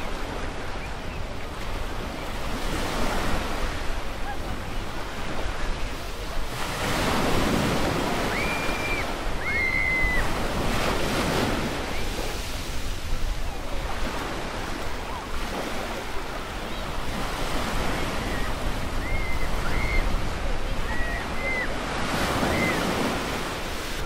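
Small waves washing onto a sandy beach, the surf swelling and falling back every few seconds. A few short bird chirps sound over it, around a third of the way in and again near the end.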